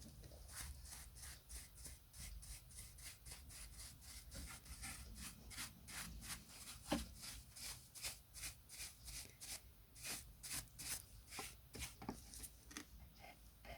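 Steady back-and-forth rubbing strokes by hand on a workpiece, about three a second, with one sharper knock about seven seconds in.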